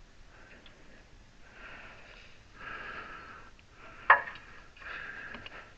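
A person breathing hard through the nose in three long draws. A single sharp click or knock about four seconds in is the loudest sound.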